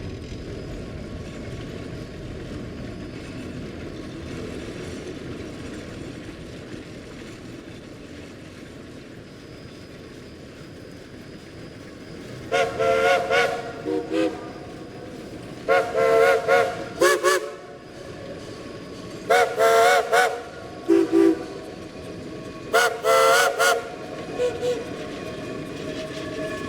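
Steam locomotive chime whistle sounding several notes at once, blown in about four groups of long and short blasts starting about halfway through, over the steady rumble of a train running.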